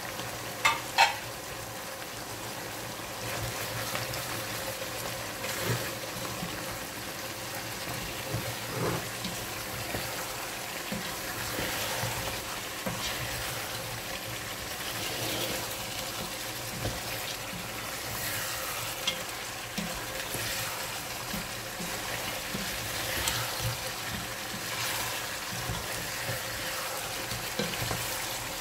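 Lamb pieces and spice powder sizzling in a non-stick pot while a spatula stirs them, with scraping and light knocks against the pot. Two sharp clacks about a second in.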